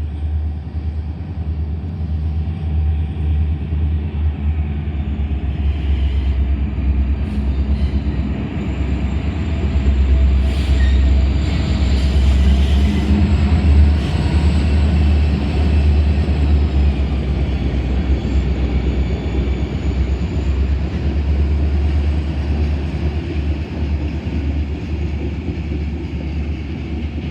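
Freight train rolling past, its cars running over the rails in a steady low rumble that is loudest about halfway through. A faint thin high whine comes in around the middle and fades.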